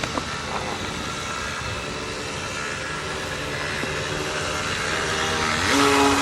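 3D-printed RC jet boat's motor and water-jet drive whining steadily at low throttle over a steady hiss; shortly before the end the pitch rises quickly and holds higher and louder as the throttle is opened.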